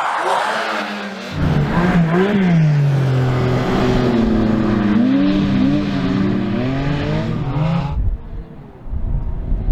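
Porsche 718 Cayman GT4 RS's naturally aspirated 4.0-litre flat-six engine revving hard, its pitch rising and falling again and again as the throttle is worked, after about a second of rushing noise. About eight seconds in the engine note drops away to a low rumble.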